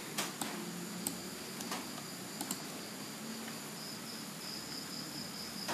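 A computer mouse clicking several times, single and in quick pairs, over a steady faint high-pitched background tone.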